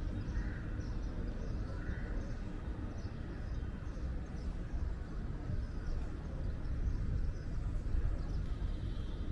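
Wind buffeting the microphone: a steady, gusting low rumble, with a few faint higher chirps in the background.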